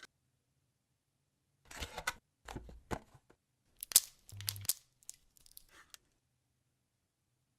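A run of short rustling and scraping handling noises with a sharp click about four seconds in, then silence.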